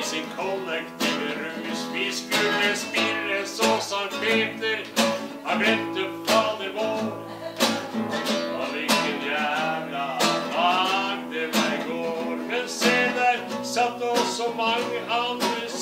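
A man singing a blues song while strumming a classical nylon-string guitar in a steady rhythm.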